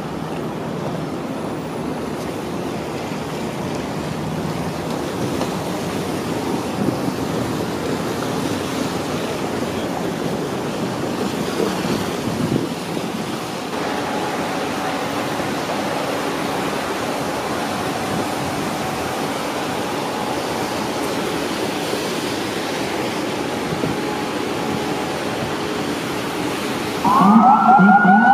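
Busy city street ambience: a steady roar of traffic, whose texture changes abruptly about halfway through. About a second before the end, an emergency vehicle siren starts wailing, sweeping up and down in pitch.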